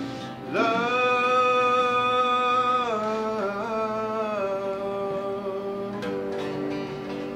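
Acoustic band music with guitar: one long held note that slides down about three seconds in, then a lower note held.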